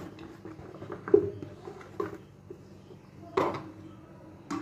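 Scattered light knocks and clicks of plastic lunch containers and lids being handled and fitted together, the sharpest knock just after a second in.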